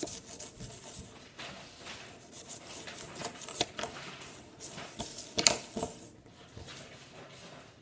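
Plastic fidget spinner being handled, a little broken: irregular clicks, knocks and scrapes of hard plastic, with a louder clatter a little past halfway.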